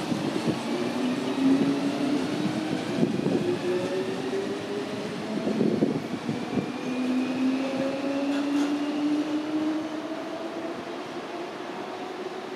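DB Class 420 S-Bahn electric multiple unit pulling away and accelerating. Its traction motors give a whine that climbs slowly in pitch, with a few clattering knocks from the wheels on the track. The sound fades near the end as the train draws away.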